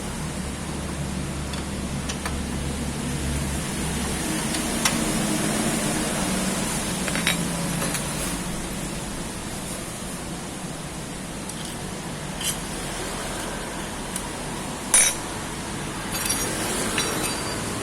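Hand tools and metal parts clinking now and then against a steady background hiss during engine assembly, with the sharpest clink about 15 seconds in.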